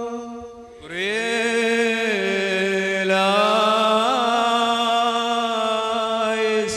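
Liturgical chant of the Syriac-rite Qurbana, sung in long, drawn-out held notes. The voice slides up into a new note about a second in, makes a few small melodic turns in the middle, and breaks off just before the end.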